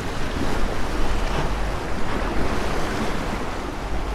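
Surf washing and breaking against the rocks, with wind blowing on the microphone.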